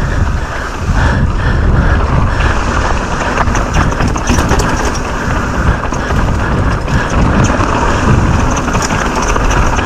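Wind rushing over a bike-mounted or helmet microphone with a heavy rumble, as a downhill mountain bike descends at speed, and frequent small clatters from the bike over rough ground.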